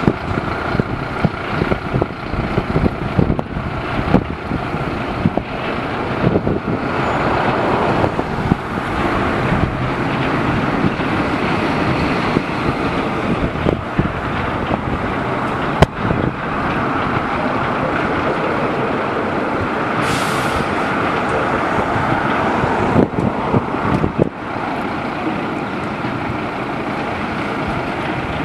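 Fire trucks' diesel engines running as the appliances drive on a call, a steady rumble with road noise, and a short hiss of air brakes about two-thirds of the way through.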